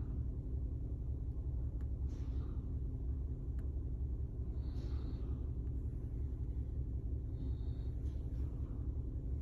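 Toyota Camry hybrid's four-cylinder engine idling with a steady low rumble and a quickly pulsing level, the engine that is being checked for a misfire and vibration.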